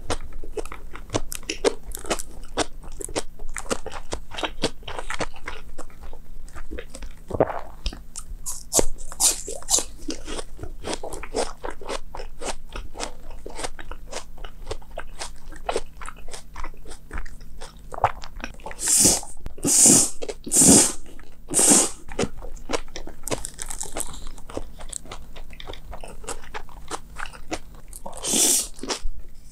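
Close-miked eating of cold bibim noodles with crisp toppings: continuous chewing and crunching bites, with a run of four louder bites about two-thirds through and a couple more near the end.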